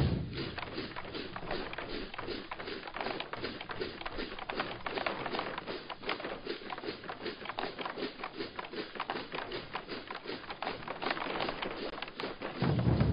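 Many pairs of Chinese hand cymbals clashing together in a fast, dense rhythm, without the drums; the deep beat of the big barrel drums comes back in near the end.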